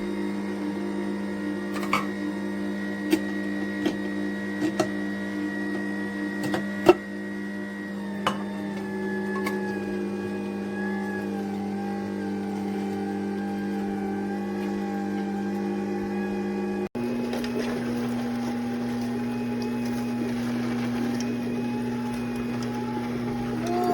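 Electric motor of a cold-press slow juicer running with a steady hum, with sharp clicks and cracks now and then during the first several seconds. After a brief break the hum carries on at a slightly higher pitch.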